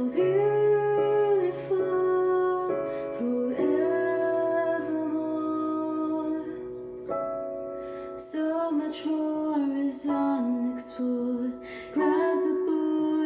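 A slow song: a woman singing held, stepping notes over soft piano chords.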